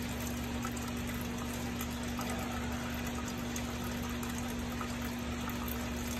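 Diesel fuel draining steadily from the opened drain petcock of a Cummins X15 fuel filter into a bucket, over a steady low hum.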